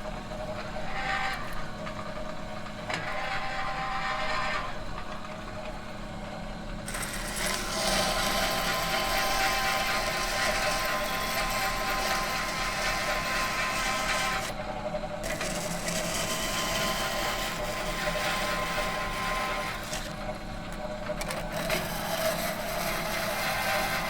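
A metal machine humming steadily, with a constant low drone under a grinding, noisy upper layer. The sound swells louder and harsher about seven seconds in, eases back about halfway through, and rises again near the end.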